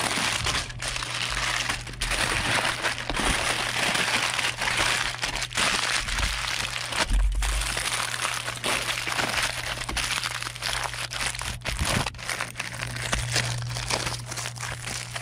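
Aluminium foil crinkling and crumpling continuously as hands fold it and crimp it into a packet, with many small sharp crackles. A dull low thump comes about seven seconds in.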